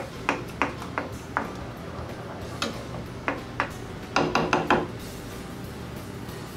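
Wooden spoon knocking and scraping against a stainless steel skillet as a thick gravy is stirred: scattered single knocks, then a quick run of about five knocks a little past halfway, over a low steady hum.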